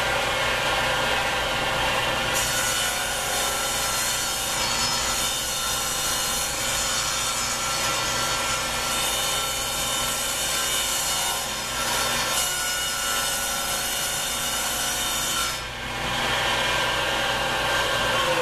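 Table saw running with its blade set low, cutting a shallow 1/8-inch groove along a plywood board for about thirteen seconds, then running free near the end.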